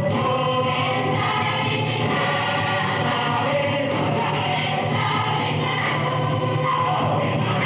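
Music for a dance performance: a group of voices singing together over steady accompaniment, at an even level throughout.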